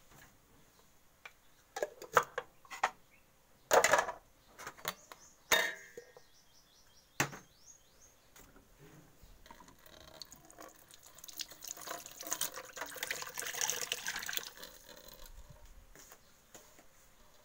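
Kitchen clatter: a few sharp knocks of pots and utensils, then water running for about five seconds, swelling and stopping near the end.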